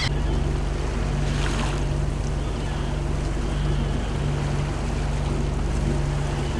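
Wind and water noise aboard a Leopard 45 sailing catamaran under way, over a steady low hum, with a brief louder rush about a second and a half in.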